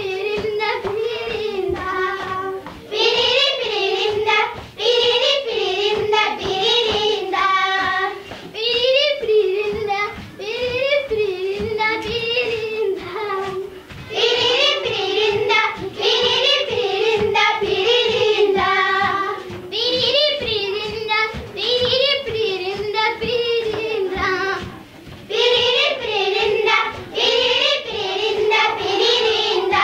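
Group of Maasai girls singing their dance song together, in repeated phrases of a few seconds with short breaks between.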